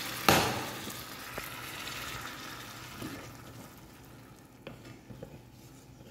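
Broth poured into a hot pan of fried onions and cracked peppercorns sizzles with a sudden loud hiss about a third of a second in. The hiss fades over the next few seconds to a quieter sizzle while a wooden spatula stirs the pan sauce, with a few light knocks near the end.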